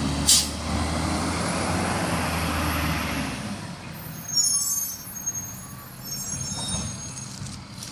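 Garbage truck engine running with a steady low hum, with a short hiss about a third of a second in; the engine sound drops away about three and a half seconds in.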